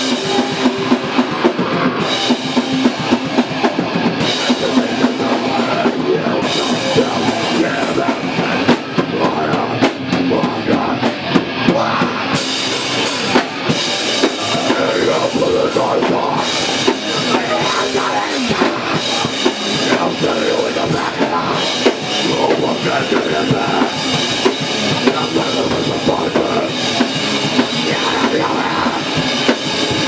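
Heavy metal band playing, with electric guitars and a pounding drum kit keeping a steady beat. The sound grows fuller about twelve seconds in.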